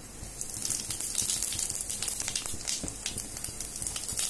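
Cumin seeds sizzling and crackling as they hit hot mustard oil in a kadai, starting about half a second in as a dense, steady crackle of tiny pops.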